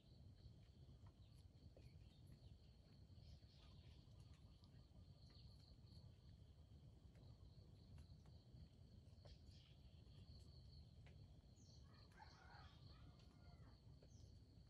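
Near silence: a faint, steady high insect drone held on two pitches over a low rumble, with a short faint call about twelve seconds in.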